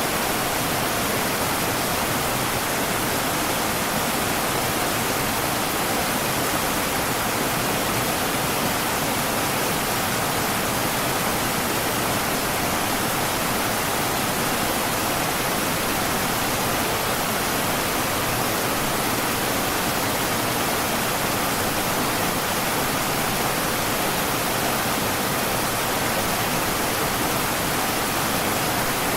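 River water rushing steadily over rocks: an even, unbroken hiss of flowing water.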